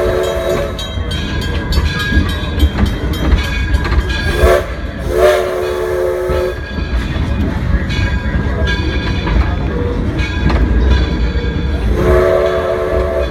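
A coal-fired steam locomotive's chime whistle sounds several chord blasts: a short toot about four and a half seconds in, then a longer blast, and another long blast near the end. Under it runs the train's steady low rumble and the clatter of the cars.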